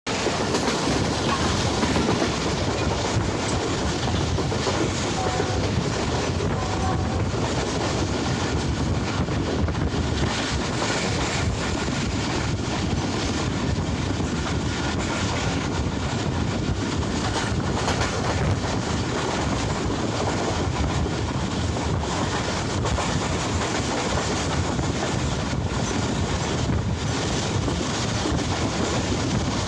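Steady running noise of the Subak Raftar railcar at speed, heard on board: wheels rumbling on the rails with no let-up.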